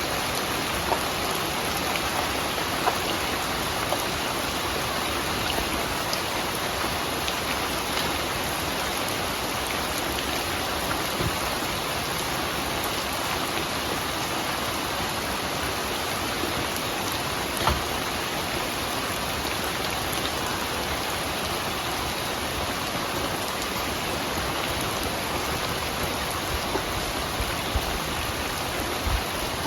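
Steady rain falling, a dense even hiss with scattered drop ticks and a few sharper drips.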